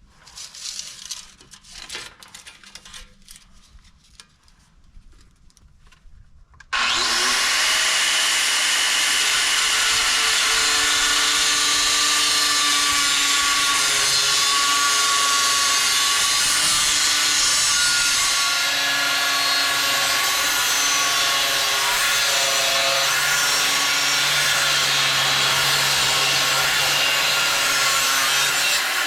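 A few handling clicks and knocks, then an angle grinder starts abruptly about seven seconds in and runs steadily against steel with a whine under the grinding noise, its pitch shifting a little as pressure on the work changes, and spins down at the very end.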